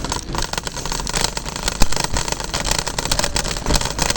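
Kick scooter rolling over pavement: a steady low rumble from the wheels with dense irregular rattling and clicking.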